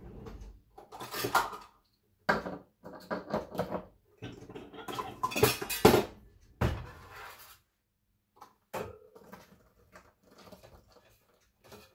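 Kitchen utensils clinking and clattering as a utensil drawer is rummaged and a funnel and glass jar are handled: a series of knocks and clinks, loudest about five to seven seconds in, then sparser light taps.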